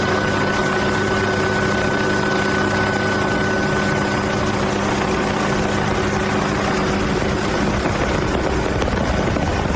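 Helicopter in flight: steady engine and rotor noise with a high whine that fades out about halfway through.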